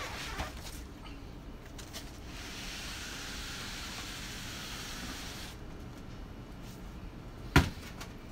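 Cardboard boxes being handled: a steady scraping hiss of cardboard rubbing on cardboard for about three seconds, then a single sharp knock near the end as a box is set down.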